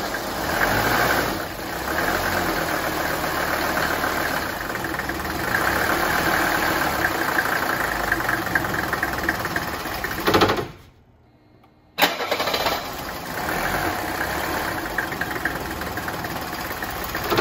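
Mercedes-Benz 300 turbo diesel's five-cylinder engine cold-started. It runs for about ten seconds, dies, and is started again about a second later. The stall is the fault being shown: the engine starts and quits when cold, which the owner suspects is fuel pressure draining back from the injectors overnight.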